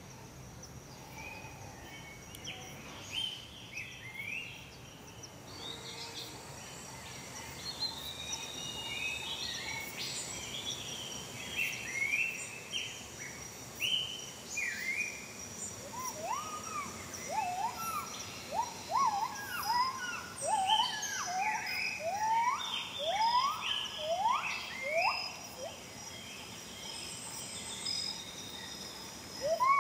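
Tropical rainforest chorus: many short whistled calls, each swooping upward, come thicker and louder through the second half, over a steady high insect whine.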